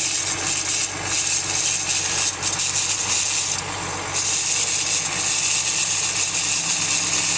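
Eaton 5205 truck gearbox running with a loud, steady harsh grinding noise that eases briefly a few times: the sound of a broken bearing in the gearbox.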